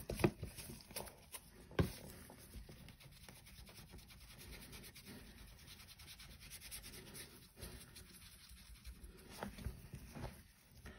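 Flat dry brush scrubbed and wiped on a paper towel, a steady, faint, scratchy rubbing of bristles on paper: the excess paint being worked off before dry brushing. A couple of light knocks come in the first two seconds.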